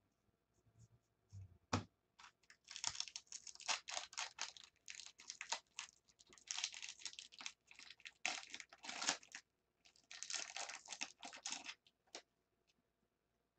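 Foil wrapper of a 2015 Bowman Draft Jumbo baseball-card pack being torn open and crinkled, in three long spells of crackling. A few sharp clicks of cards being handled come before it.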